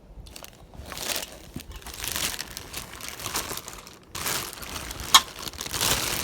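Ceiling fan packaging crinkling and rustling in uneven surges as the parts are handled, with a sharp click about five seconds in.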